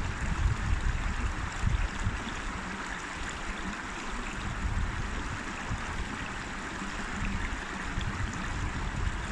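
River flowing: a steady rush of running water, with uneven low rumbles underneath.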